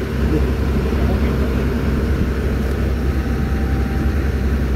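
Isuzu 6BG1 six-cylinder diesel engine of a new XCMG XE215C excavator running at a steady speed with the machine standing still.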